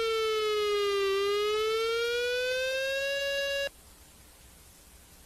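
Emergency-alert siren tone: one steady pitched tone that slowly falls in pitch for about a second, rises back over the next two and a half seconds, and cuts off suddenly, leaving faint hiss.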